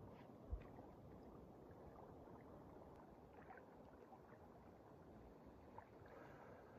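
Near silence: faint outdoor ambience, with a single soft low thump about half a second in.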